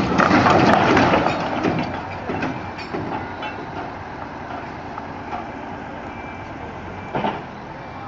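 A heavy crash and scraping as a bulk tanker trailer topples over onto the ground, loud at the start and dying away over the next few seconds. There is a single short knock near the end.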